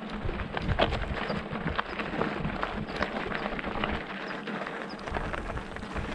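Mountain bike rolling over a rough, stony trail: tyres crunching on gravel and a dense, irregular rattle of small knocks from the bike.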